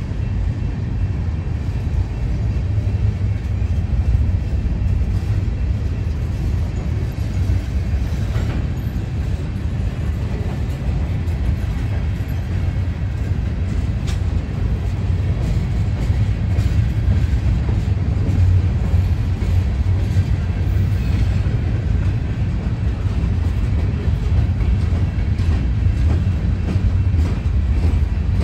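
A freight train's gondola cars rolling past in a steady low rumble of wheels on rail, with faint scattered clicks.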